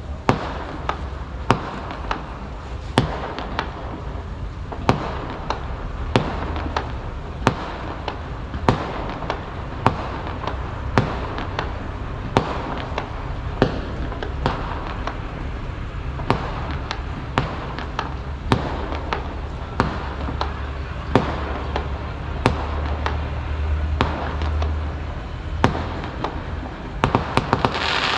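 Fireworks display going off, one sharp bang roughly every half second to second, with a quick string of bangs and a crackling hiss near the end, over a steady low rumble.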